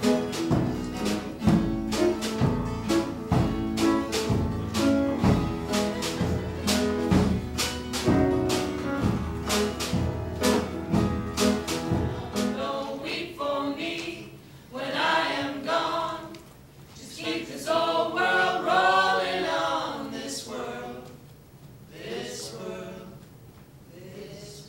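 Live acoustic ensemble music with a steady beat, strings and drum playing together. About halfway through, the beat and low notes stop and voices sing a few short phrases with pauses between them.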